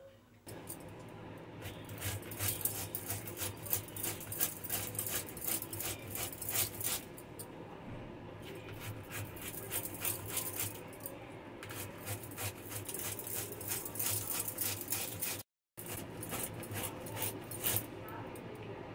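Peeled bottle gourd being grated by hand on a metal box grater into a steel plate: a quick, continuous run of scraping strokes, broken by a short silent gap about three-quarters of the way through.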